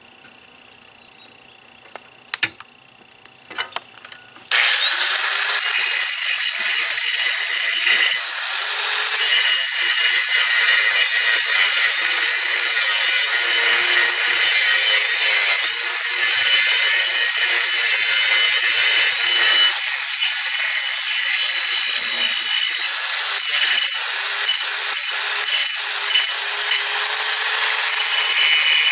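A few light clicks, then about four seconds in a handheld electric angle grinder starts with a brief rising whine and grinds steadily on a steel tractor drawbar, rounding off its sharp sheared corners.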